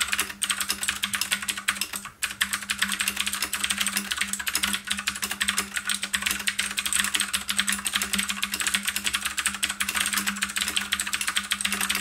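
Fast typing on a compact mechanical keyboard with blue switches: a dense stream of loud, sharp key clicks with a short pause about two seconds in.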